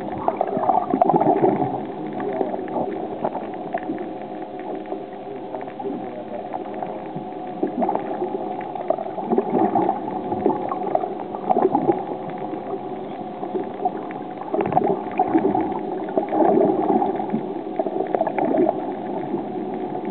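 Muffled water noise heard through a submerged camera: seawater gurgling and sloshing around the housing, with a faint steady tone underneath.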